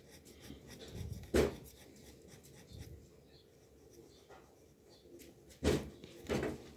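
Faint scratching of drawing strokes on paper, with a few sharp knocks: one about a second and a half in and two near the end.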